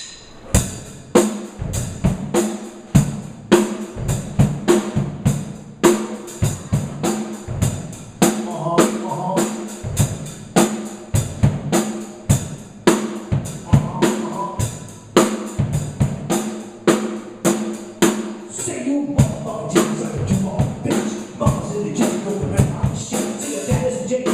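Hip hop beat: a steady kick and snare drum pattern with cymbals over a held bass tone. Pitched melody notes come in about eight seconds in and grow fuller toward the end.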